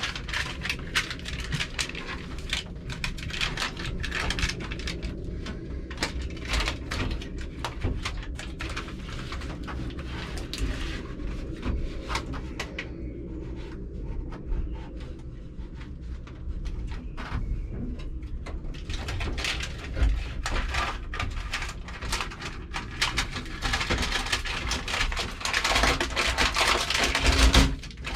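Irregular crinkling, clicks and knocks of sound-deadening mat being handled and pressed onto a van's bare metal panels, over a steady low rumble.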